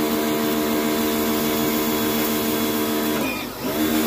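Black+Decker electric pressure washer running steadily while its jet sprays water, a constant motor hum over the hiss of the spray. About three seconds in, the motor briefly sags in pitch and level, then comes back up to speed.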